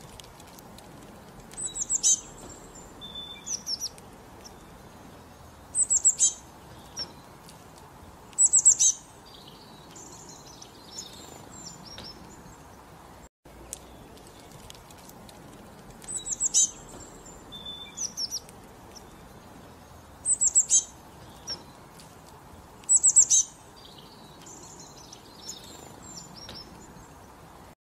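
Small songbird chirping: short clusters of quick, high chirps every two to three seconds over a faint steady hiss, with the same run of calls repeating about halfway through.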